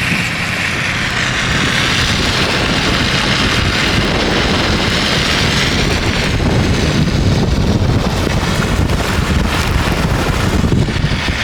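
Steady rushing wind and road noise from a moving truck, with wind buffeting the microphone.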